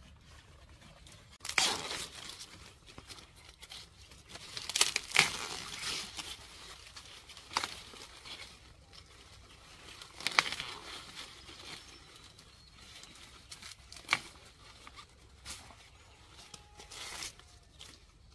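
Ears of corn snapped off their stalks by hand, a sharp crack every few seconds, about six in all, amid the rustle of the corn leaves.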